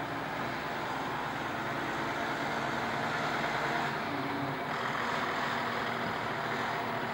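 Forage harvester chopping a standing crop, with the tractor and trailer running alongside: a steady engine drone under a continuous rushing noise.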